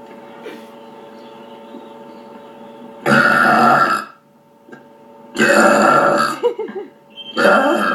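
Three loud human burps, each about a second long, coming after about three seconds of faint steady hum; the last is cut off by the end.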